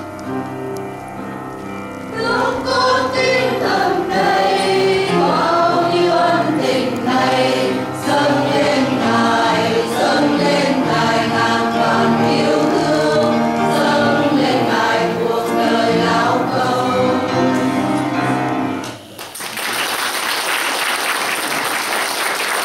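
Church choir singing a hymn with instrumental accompaniment; about nineteen seconds in, the singing breaks off and the congregation applauds.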